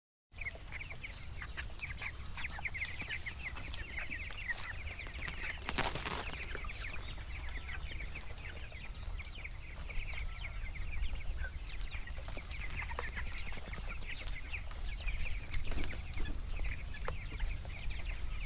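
A flock of young broiler chickens cheeping and clucking, many short high calls overlapping, over a steady low rumble.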